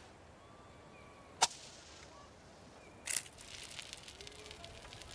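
A sharp click, then about three seconds in a short burst as a pine cone is set alight, followed by the light crackling of it burning.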